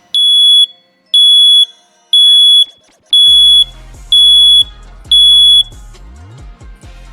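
Carbon monoxide detector sounding its test alarm: six loud, high-pitched beeps, each about half a second long, about one a second. Background music comes in under the beeps about three seconds in.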